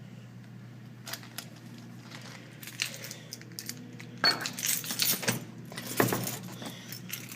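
A bunch of keys jangling and clinking as they are handled at a door: a few scattered clinks at first, then busier clinking from about four seconds in. A steady low hum runs underneath.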